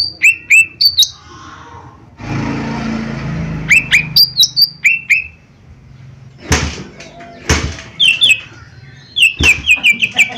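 Cucak ijo mini (small leafbird) singing: sharp whistled chirps that sweep down in pitch, in short bursts, ending in a rapid run of about eight notes a second. A rushing noise comes about two seconds in, and three loud snaps come later.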